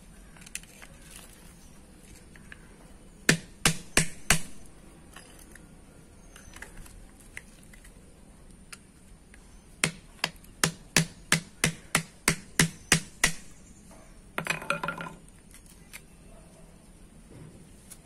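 Hammer striking a punch to drive out the rivets holding the old lining on a drum brake shoe: four sharp metallic knocks, then after a pause a quick run of about a dozen, roughly three a second. A short rattling clatter follows near the end of the hammering.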